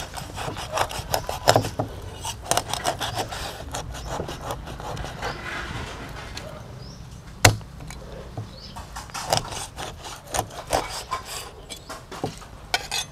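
Meat cleaver slicing raw fish on a round wooden chopping block: repeated short scrapes and light knocks of the blade on the wood. One sharp, loud chop comes about seven and a half seconds in.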